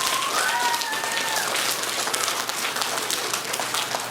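Audience of children clapping, irregular and continuous. A single high child's voice rings out briefly near the start.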